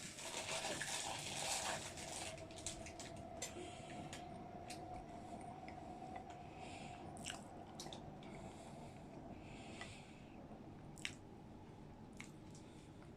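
Close-miked chewing of digestive biscuit dipped in ice cream: wet, soft crunching and mouth clicks, denser in the first couple of seconds and then lighter and scattered.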